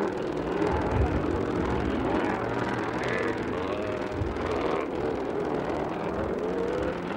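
Several motocross bikes' two-stroke engines racing, their overlapping pitches rising and falling as the riders rev and shift.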